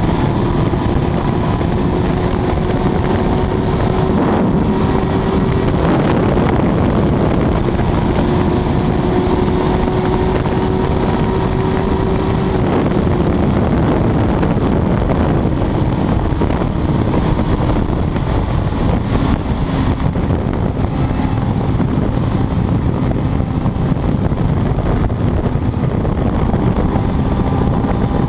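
Kawasaki ZX-12R's inline-four running hard at a sustained high speed, its note steady under heavy wind rush, then dropping a little in pitch about twelve seconds in.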